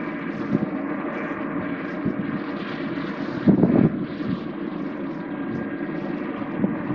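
Aerial ladder fire truck's engine running steadily at raised speed to drive its water pump while hose streams flow, a constant drone with a rushing hiss over it. It swells louder briefly about three and a half seconds in.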